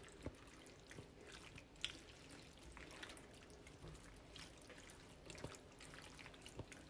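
Faint, irregular wet squishing and soft taps of a silicone spoon stirring creamy penne and melting shredded cheese in a skillet.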